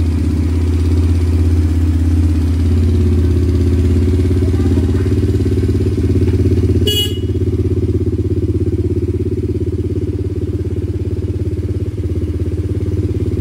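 Quad bike engine idling steadily with a low, even pulse. About seven seconds in there is a brief sharp click, after which the engine runs a little quieter.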